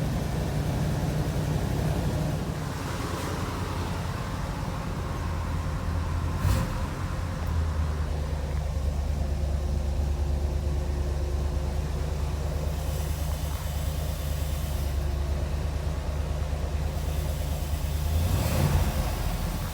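C3 Corvette V8 idling steadily with a rattle, which the owner suspects may be the throwout bearing. There are two brief louder noises, one about six seconds in and one near the end.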